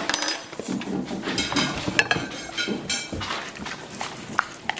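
Several dogs moving about on a hard floor, with irregular clicking and tapping of their claws and paws.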